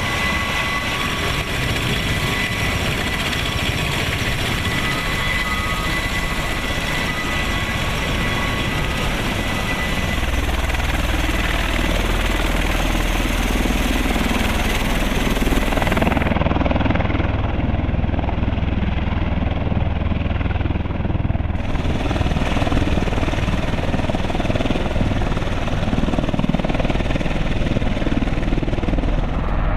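MV-22B Osprey tiltrotor running on the ground, its twin turboshaft engines and spinning proprotors making a steady heavy drone. A thin high whine sits over it through the first third.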